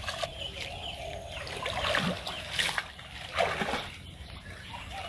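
Water splashing and sloshing in irregular bursts as fish are caught by net in shallow water.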